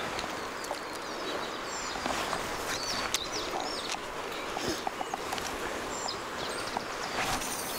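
Steady rush of river water, with small birds chirping high above it a few times, around the middle and again near the end.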